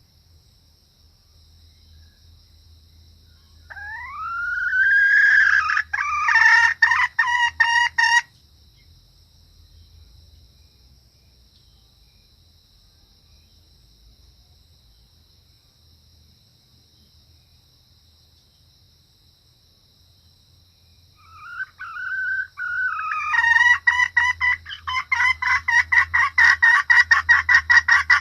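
Junglefowl hen calling, the hen's call used as a lure to draw junglefowl cocks. Twice, a rising-then-falling squawk breaks into a fast run of short repeated clucking notes. The second bout starts about three-quarters of the way through and is still going at the end.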